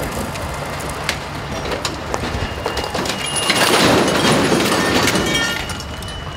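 Diesel engines of the recovery trucks drone steadily; about three and a half seconds in, a loud rushing crash lasting about two seconds as the overturned semi-truck is pulled back onto its wheels and its spilled white load pours off. A thin high whine holds through the second half.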